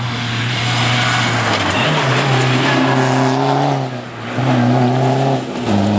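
Diesel-engined Škoda Fabia rally car driven hard at full throttle. The engine note climbs, drops sharply twice as it shifts gear or lifts, and climbs again.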